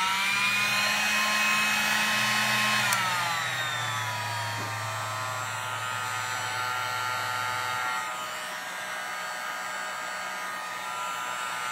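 Handheld heat gun running steadily, its fan motor whining as it blows hot air to shrink heat-shrink tubing over a soldered wire splice. The whine drops in pitch about three seconds in and settles lower.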